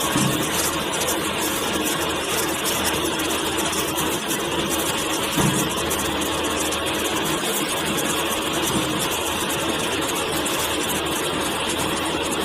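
Engine of a 2.6-ton mini wheel loader running steadily, with a brief thump about five and a half seconds in.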